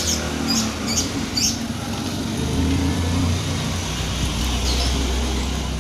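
Road traffic ambience with a motor vehicle engine running, a steady low rumble that grows fuller partway through, and a few short hissing sounds in the first second and a half.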